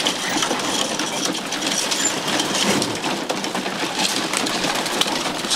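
A flock of racing pigeons crowding into wooden feeding baskets: wings flapping and many beaks pecking grain on the basket floors. The result is a dense, continuous clatter of rapid taps.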